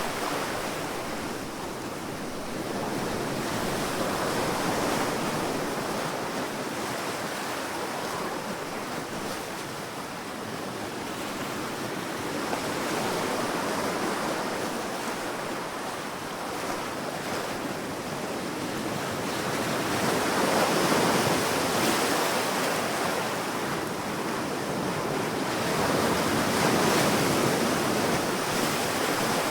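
Sea waves washing onto a sandy beach, the surf swelling and easing every few seconds, with some wind.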